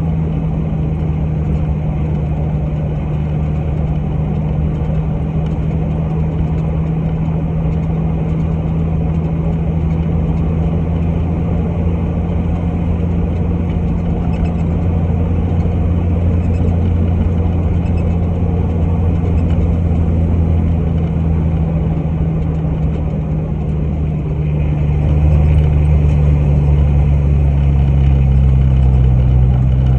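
Off-road vehicle's engine running steadily with a low hum. About 25 seconds in it grows louder and its pitch drops slightly.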